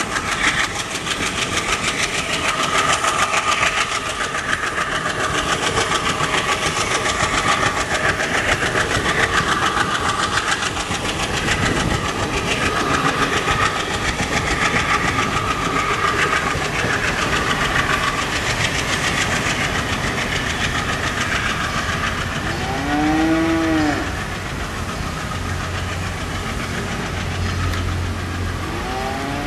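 Diesel-hauled passenger train passing: coaches rolling by with wheels clattering over the rail joints, and the WDG3A diesel locomotive's engine running further ahead. A short horn-like call, rising then falling in pitch, comes about 23 s in and again at the very end.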